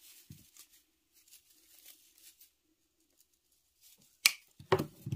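Faint rustling of artificial pine garland being handled, then about four seconds in one sharp snip as scissors cut through the garland's wire stem, followed near the end by a couple of duller knocks.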